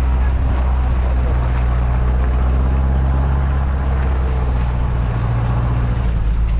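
Off-road 4x4's engine running steadily at a constant pitch, with a haze of road and wind noise.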